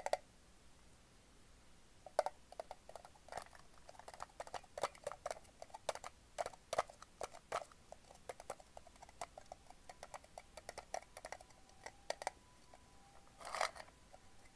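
Hard candy drops clicking and rolling against the inside of a metal Sakuma Drops tin as it is turned in the hands, in light irregular taps with a faint metallic ring. A louder rattle near the end as the tin is tipped toward its opening.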